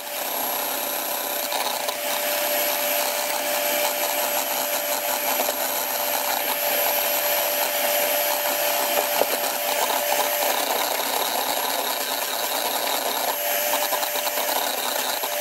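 Electric hand mixer running at a steady speed with a constant motor whine, its beaters whisking an egg batter in a plastic bowl.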